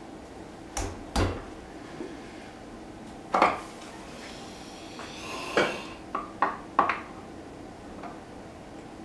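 Metal parts clinking and knocking against the aluminium cylinder head of a Porsche Cayman S engine while an oil scavenge pump is being fitted by hand. There are about seven sharp clinks: two early, the loudest about three and a half seconds in, and a quick run of four near the end.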